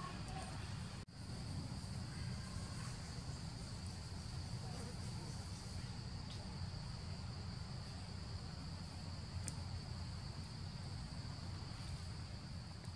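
A steady high-pitched insect drone, unbroken, over a low rumble of background noise.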